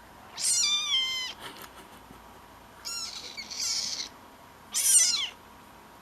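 Tabby kitten meowing three times: a long first meow that falls in pitch, a second drawn-out call about a second and a half later, then a short one near the end.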